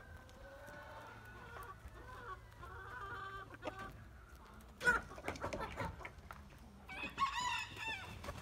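Chickens calling: a rooster's long, drawn-out crow, fairly faint, over the first couple of seconds, then shorter clucks and calls, with a louder wavering call about seven seconds in.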